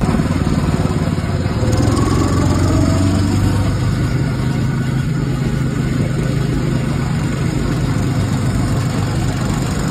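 Small go-kart engines running on a track: a steady low drone, with a few short rising whines in the first few seconds.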